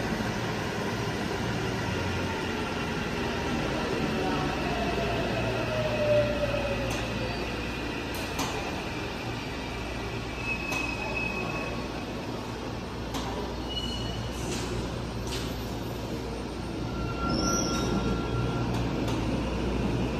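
Subway train at the platform behind the screen doors: a steady low rumble with a faint motor whine that slowly falls in pitch a few seconds in, and brief high squeals and clicks from the wheels and equipment.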